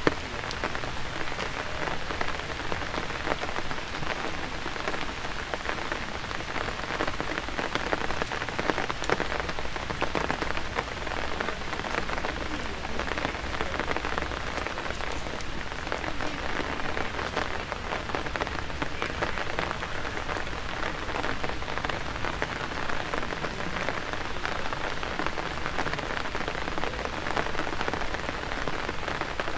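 Steady rain, a dense, even patter of drops.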